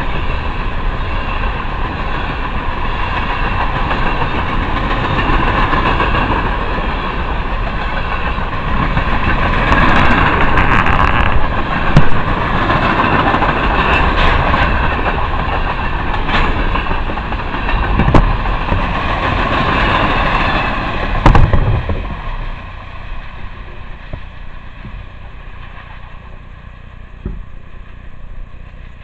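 Freight train of covered hopper cars rolling past close by: a steady rumble of steel wheels on rail with a few sharp bangs. About 22 seconds in the sound drops away as the end of the train passes.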